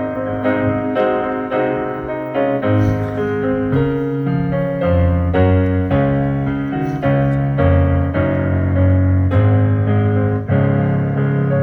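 Piano playing a slow hymn in sustained chords, changing chord about every second.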